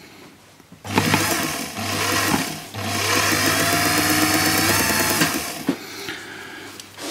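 Small belt-driven lathe's electric motor running in two spells, starting about a second in and again from just under three seconds until past five seconds. It gives a steady hum with a faint, slowly rising whine as the work spins.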